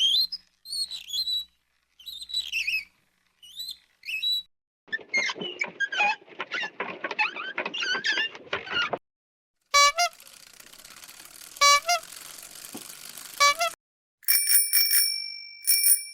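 A run of separate vehicle sound effects: short high chirps, then a dense crackly stretch, then three short tonal hits over a hiss. Near the end a bicycle bell rings several times, its tones ringing on and fading.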